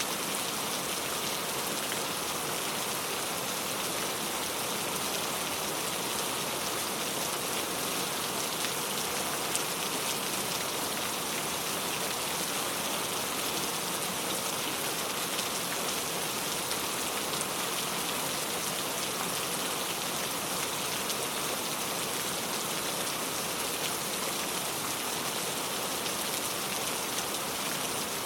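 Steady, even rain falling on a surface, a constant hiss of many drops.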